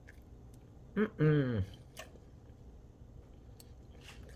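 A woman's short wordless voice sound, falling in pitch, about a second in; otherwise low room noise with a few faint ticks.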